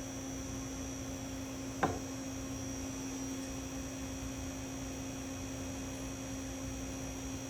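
Steady electrical hum from the car audio test setup, with a single short click about two seconds in.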